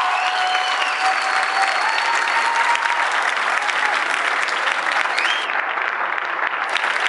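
Audience applauding, a dense patter of clapping, with a few cheers called out over it.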